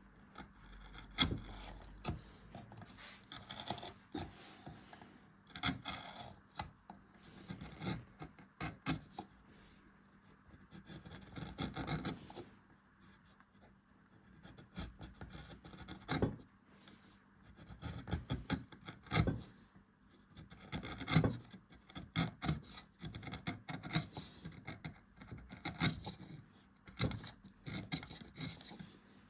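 Hand tools scraping and cutting into a beech-wood cup: irregular rasping strokes and sharp clicks, coming in short runs with brief pauses.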